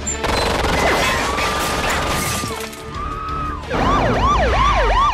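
A loud noisy crash and clatter, then a police siren: one held wail, then about a second later it switches to a fast up-and-down yelp.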